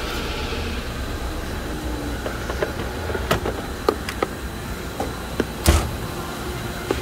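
Light metal clicks and knocks from a Matco steel tool cabinet as things are stowed on its shelves, then a heavier knock a little before the end as its door is swung shut, over a steady low hum.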